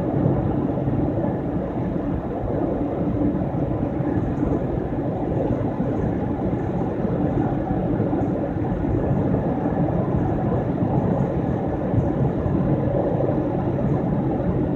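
Steady road noise of a car driving along a highway, heard from inside the cabin: a low, even rumble with no breaks.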